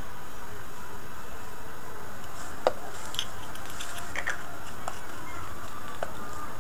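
A few light plastic clicks and taps as a small plastic bottle and its cap are handled and the cap is screwed on, the sharpest about a third of the way in, over a steady hiss.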